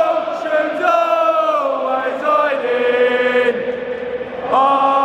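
A stadium crowd of football supporters singing together in long, drawn-out notes. The tune slides down in the middle and rises again near the end.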